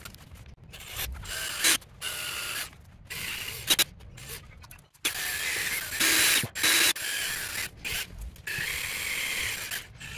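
Cordless drill run in short bursts, each a second or so long, with its bit grinding into a battery busbar to cut it, and a couple of sharp clicks along the way.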